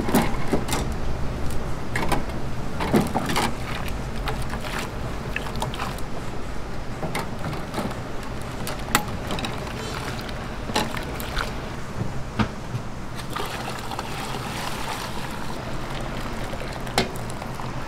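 Bamboo skewers of Korean fish cake (eomuk) clicking and knocking against a stainless steel broth tray as they are laid in, in scattered sharp strokes over a steady low hum. The broth bubbles for a few seconds later on.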